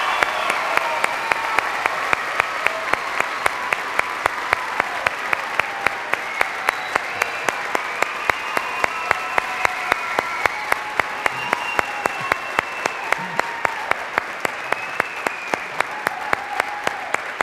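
Audience applauding, with a steady beat of sharp claps about three a second running through it.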